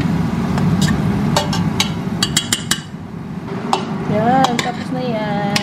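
Metal spoon stirring pork, tomatoes and onions in a stainless steel pot, with repeated sharp clinks and scrapes of the spoon against the pot.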